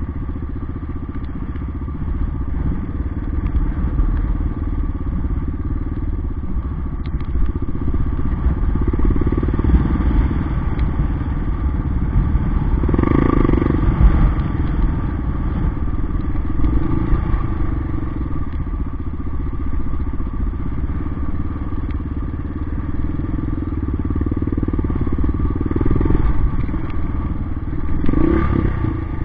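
Yamaha XT 600's single-cylinder four-stroke engine running as the bike rides a dirt track, the engine note rising and falling with the throttle, loudest about halfway through and again near the end.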